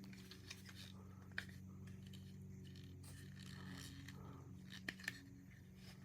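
Faint clicks and scrapes of a plastic Transformers action figure's parts being handled, folded and pressed together. There is a sharp click about a second and a half in and two quick clicks near the end, over a low steady hum.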